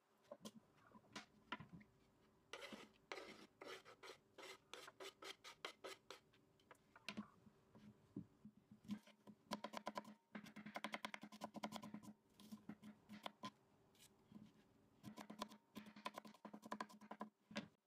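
Kitchen knife chopping dry onion on a wooden cutting board: runs of quick knocks of the blade on the board, about four a second at first and faster later.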